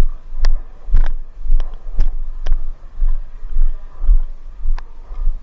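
Deep thuds at a steady pace of about two a second, like walking footsteps jolting a body-worn camera and its gear, with a sharp click on several of them.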